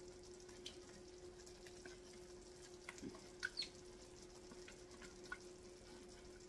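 Mostly near silence over a faint steady hum, with a few soft taps and wet plops as a silicone spatula scrapes mashed potatoes out of a stainless steel bowl into a glass casserole dish; the clearest taps come about three seconds in.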